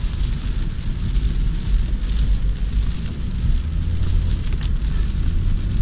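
Car driving through heavy rain, heard from inside: a steady low road and engine rumble under an even hiss of rain and tyre spray, with a few faint taps.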